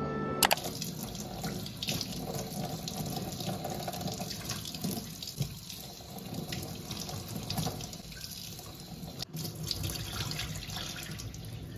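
Tap water running into a stainless-steel sink, starting abruptly about half a second in. Raw chicken breast pieces are rinsed in a bowl under the stream, with the water splashing and being poured off the bowl into the sink.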